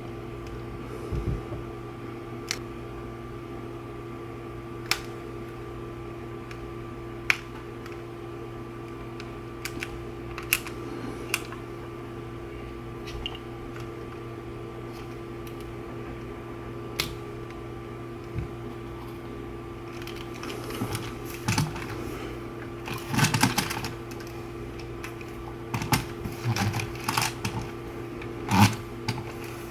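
Scattered sharp clicks and ticks of plastic Lego Technic parts being handled and snapped together, growing into a denser run of clicks and rattles in the last few seconds, over a steady low electrical hum.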